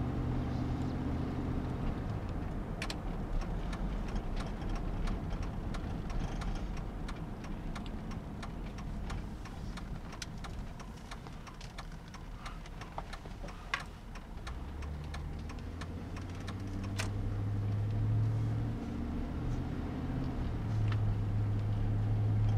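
Tow vehicle's engine and road noise heard from inside the cab while pulling a travel trailer. A low engine hum drops away after about two seconds, leaving a quieter road rumble with faint scattered ticks, then comes back about two-thirds of the way in and grows louder.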